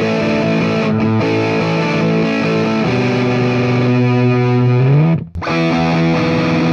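Overdriven electric guitar played through a Marshall JMP 1987 50 W valve amp into a Celestion G12M-65 Creamback speaker: distorted chords held and changed, with one low note sliding upward. After a brief break about five seconds in, the playing resumes with the amp at its extreme settings.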